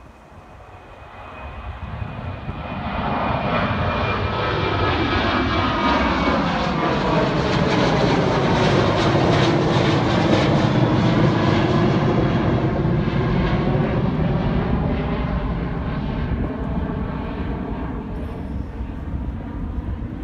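Boeing 737 jet airliner climbing out after takeoff and passing overhead: its engine noise swells over the first few seconds, stays loud through the middle with a falling whine as it goes by, then slowly fades as it flies away.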